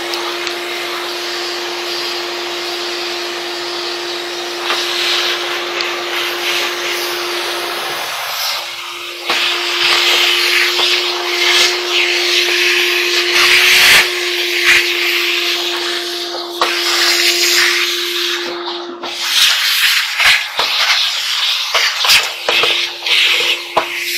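Shop vacuum running with a steady whine, its brush nozzle sucking lint and dust off a dryer's sheet-metal top and plastic blower housing. The rush of air grows louder and shifts as the nozzle rubs along and lifts off the panels, with a few sharp knocks of the nozzle against them.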